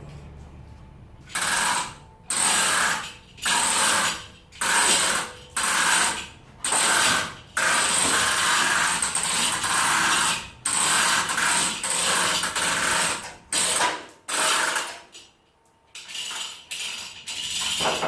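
A power tool with a ratcheting mechanical rattle, run in about a dozen short bursts of under a second each, with one longer run of nearly three seconds in the middle.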